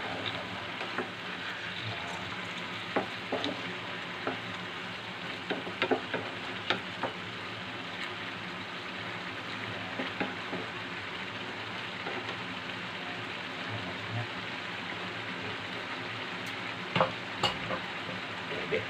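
Chicken pieces with carrots and potatoes sizzling steadily in a frying pan on a gas burner, with scattered clicks and knocks as a utensil stirs and turns them in the pan.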